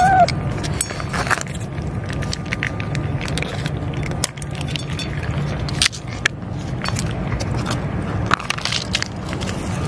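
Stray cats crunching dry kibble from a metal dish, a run of scattered sharp clicks and crackles. A cat's meow trails off at the very start, and a steady low rumble runs underneath.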